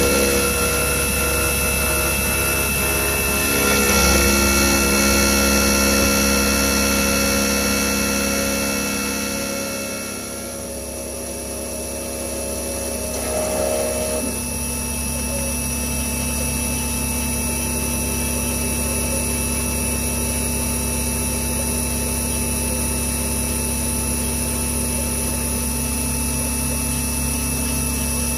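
CNC milling machine cutting a metal connecting rod under coolant: a steady whine of the spindle and cutter, its tones shifting in pitch and level about ten and fourteen seconds in as the tool moves along its path.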